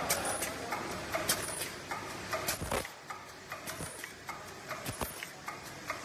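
Zipper-slider side-sealing bag making machine running, its mechanism giving a quick, uneven run of sharp clicks and clacks, about two or three a second, over a steady hiss that thins out about halfway through.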